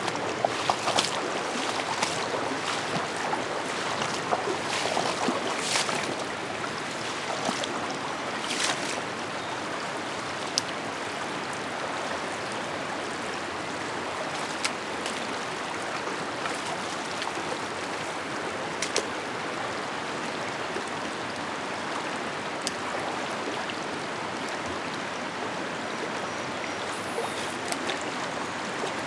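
Steady rushing of a shallow, rocky stream flowing, with a scatter of short sharp sounds in the first nine seconds and a few more later.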